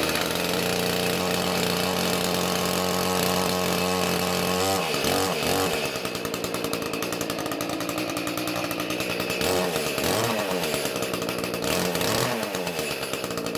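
Shindaiwa 305s two-stroke chainsaw running just after a cold start with the choke pushed in halfway. It holds a steady fast idle, then about five seconds in drops to a lower, uneven idle, rising and falling in speed a few times.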